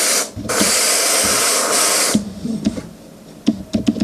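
Compressed-air paint sprayer spraying a test burst: a loud steady hiss with a short break just after the start, stopping about two seconds in. A few light clicks follow near the end.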